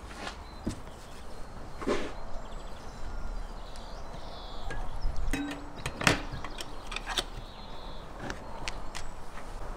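Light clinks and taps of a hinged wire grill basket being handled and closed over raw sausages, with a sharper knock about six seconds in.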